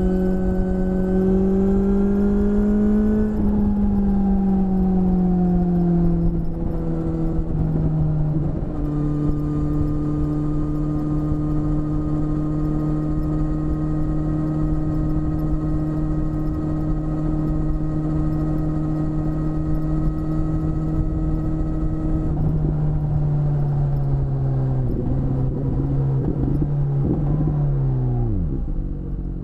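BMW S1000RR's inline-four engine through an Akrapovic exhaust, heard from the rider's seat. The engine note eases down over the first several seconds, holds steady at a constant cruise for a long stretch, then the revs fall away with several quick blips on downshifts as the bike slows near the end.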